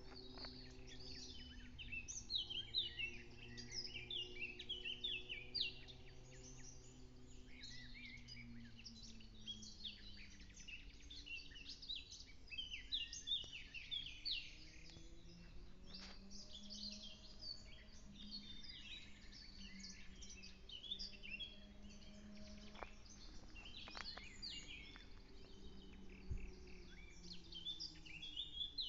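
Small songbirds chirping and singing in a busy chorus of short, high calls, over a faint low hum whose pitch drifts slowly up and down.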